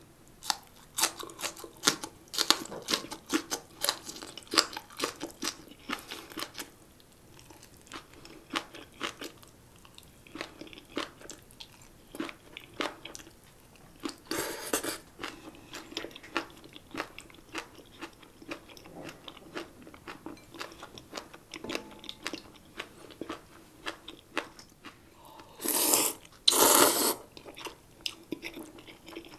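Close-miked eating of spicy kimchi and ramen: wet crunching and chewing, thickest in the first several seconds. There is a short loud slurp about halfway through and two longer, louder slurps near the end.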